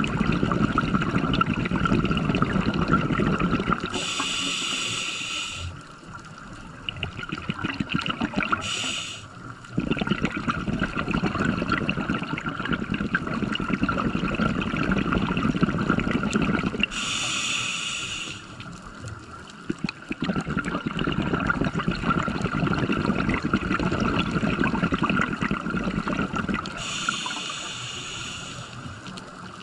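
Scuba diver breathing through a regulator underwater: long bubbling exhalations alternate with four short hissing inhalations, one of them very brief.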